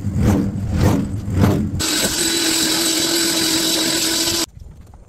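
Rhythmic thumping, about two a second, then a loud, steady machine noise: a rushing hiss with a steady hum. It starts abruptly about two seconds in and cuts off suddenly shortly before the end.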